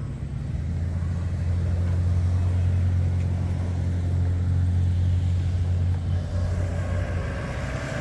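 Steady low road rumble of a car driving, with a faint rising tone coming in near the end.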